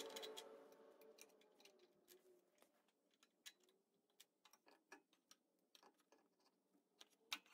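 Faint, scattered small clicks and taps of plastic and metal parts being handled as an engine's air filter housing is pulled off a portable generator. The sharpest click comes a little before the end.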